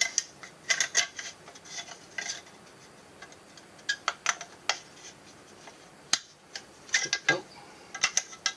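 Razor blade cutting a thin plastic cup as it is turned in the hands: scattered clicks and short scratchy scrapes of blade on plastic, with one sharp snap a little past the middle.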